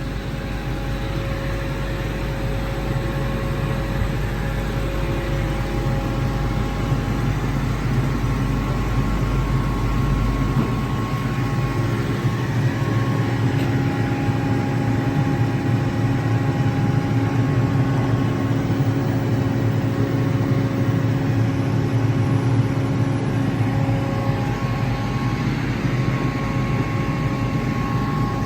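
Kaeser ASK 28 T 15 kW rotary screw air compressor running under load, building pressure into an air receiver toward 8 bar: a steady mechanical drone with faint whining tones above it. About ten seconds in, the deepest part of the hum drops away.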